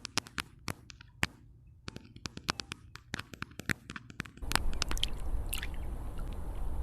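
A rapid, irregular series of sharp clicks, then about four and a half seconds in, a steady rush of flowing water with a low rumble comes in suddenly.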